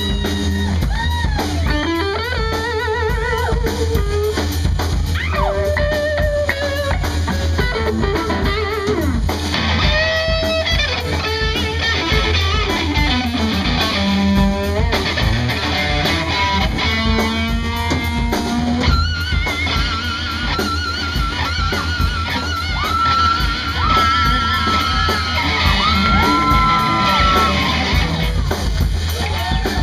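Live rock band: a lead electric guitar playing a solo line full of string bends and wide vibrato, over a drum kit, bass guitar and a second electric guitar.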